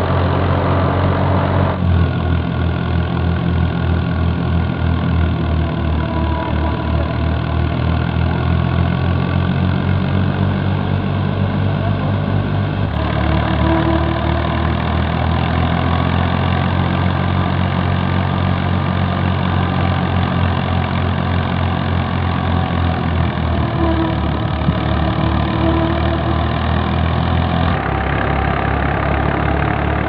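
Fiat 480 tractor's three-cylinder diesel engine running steadily under load, driving a wheat thresher, with the thresher's drum and fan whirring. The tone shifts abruptly about two seconds in, near the middle and near the end.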